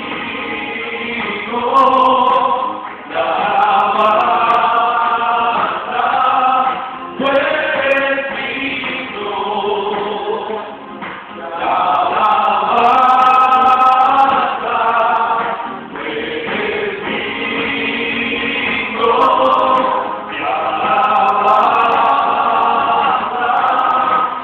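Small group of men singing a hymn together in harmony, in phrases of about four seconds with short breaks between them.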